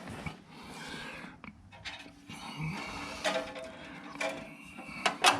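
Light knocks and clicks from hands working on a band saw during a blade change, several of them followed by a brief metallic ring.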